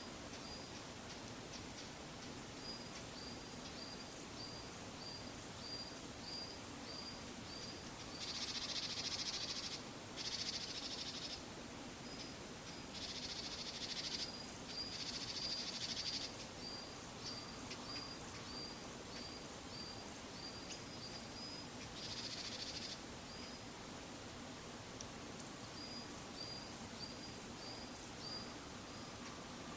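Varied tit calling from high up: runs of short, high notes at about two a second, with several harsh, buzzy bursts about a second long in the middle, over a faint steady hum.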